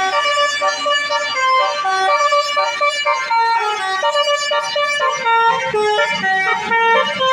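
A bus's Basuri 'telolet' musical horn playing a tune: several horn tones sounding together, stepping quickly from note to note.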